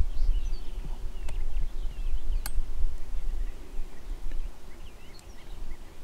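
Small birds chirping faintly at dusk over a low rumble on the microphone, with a single sharp click about two and a half seconds in.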